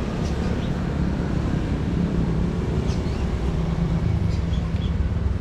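A vehicle engine running steadily with a low hum, with a few faint high chirps partway through.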